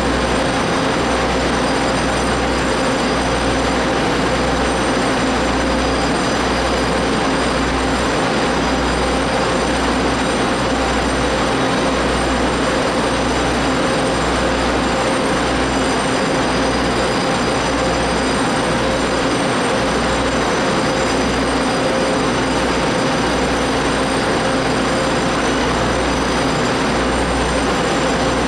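Taiwan Railway DR1000 diesel railcar standing at the platform with its engines idling: a steady hum with a low throb that swells and fades every second or two.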